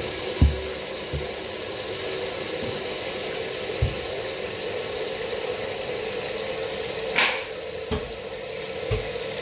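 Steady hissing background noise with a faint hum, broken by a few soft low thumps and a brief rustling burst about seven seconds in.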